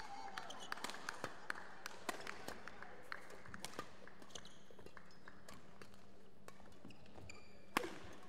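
Badminton doubles rally: sharp racket strikes on the shuttlecock mixed with players' shoes tapping and squeaking on the court floor, with one louder strike near the end.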